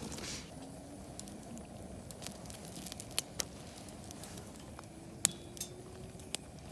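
Wood campfire crackling over a soft hiss, with a few sharp pops, the loudest about halfway through and another near the end.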